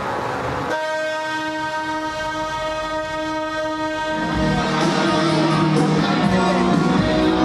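Truck air horn sounding one long, steady blast on a single note for about three and a half seconds. Music then comes in about four seconds in.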